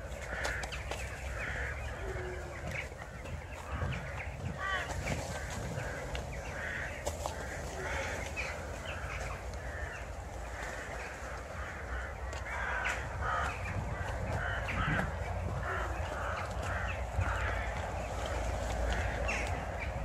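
A flock of crow-family birds calling together: many short, harsh calls overlapping without a break, the evening hubbub of a gathering flock.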